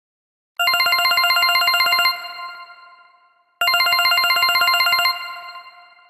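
A 360 N6 Lite phone ringtone: a rapid trilling ring of about a dozen pulses a second on a chord of bright pitches. It plays twice, each ring lasting about a second and a half and then ringing out.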